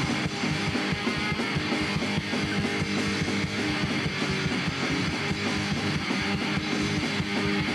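Punk rock band playing an instrumental stretch of a song: electric guitar strummed hard over a fast, steady beat.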